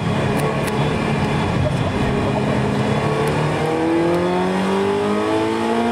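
Ferrari 328's V8 engine heard from inside the cabin while driving on track, running at steady revs and then revving up smoothly under acceleration over the last couple of seconds.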